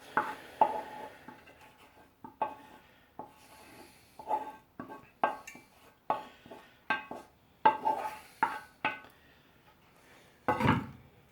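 A spoon knocking and scraping against a saucepan while drained pasta is stirred into a cheese sauce, in irregular strokes about one or two a second. A heavier, deeper knock comes near the end.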